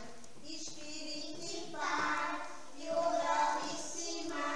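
Young children singing together, a sung phrase swelling twice.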